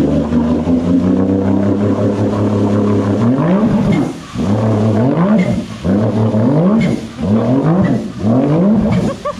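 Sea-Doo jet ski's three-cylinder 1500 cc engine run hard while strapped in place as a makeshift dyno test, holding a steady high speed for about three seconds, then revved up and let fall back five times in quick succession.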